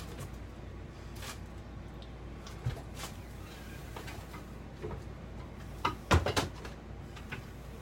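Scattered clicks and knocks of trailer cabinet doors and fittings being handled, loudest as a quick cluster of knocks about six seconds in, over a steady low hum.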